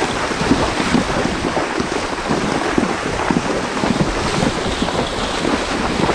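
Wind rushing over the microphone carried on a horse being ridden at speed: a steady, noisy rush with many short, uneven low thumps through it.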